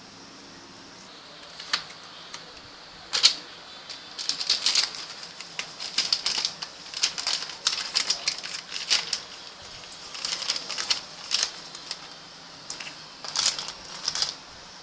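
A photobook and its packaging being handled: irregular runs of short crackling and rustling sounds that come in clusters, with a quiet stretch at the start and brief pauses between clusters.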